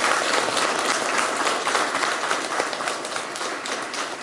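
A room full of people applauding, a dense patter of many hands clapping that eases off a little toward the end.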